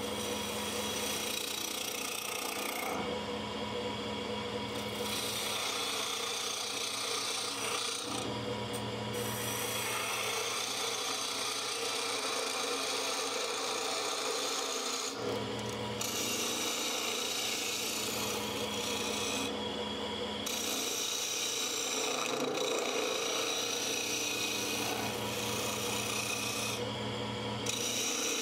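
A narrow turning tool cutting into a spinning blank of green arbutus on a wood lathe: a steady scraping hiss of the cut over the lathe's hum. The cutting noise drops away briefly several times.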